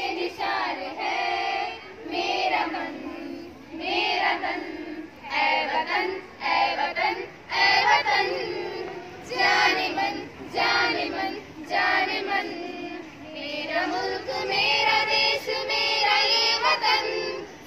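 A group of girls singing together in unison, in short phrases with brief pauses between them.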